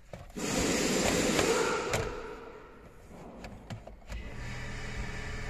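Plastic gear-selector surround trim of a Toyota Land Cruiser 200 console scraping and rubbing as it is forced into place. The scraping lasts about a second and a half and ends in a sharp click, followed by a few lighter clicks.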